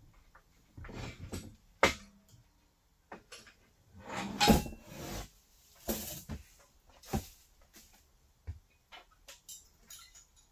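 Metal drywall-hoist parts being handled and fitted together by hand: intermittent clanks, knocks and scrapes, with a sharp knock about two seconds in and the loudest clatter about four and a half seconds in.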